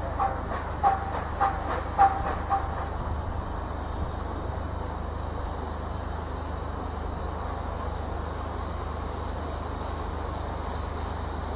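Tank steam locomotive pulling away: about five sharp exhaust chuffs, roughly two a second, fade out about three seconds in. A steady hiss of steam and a low rumble remain.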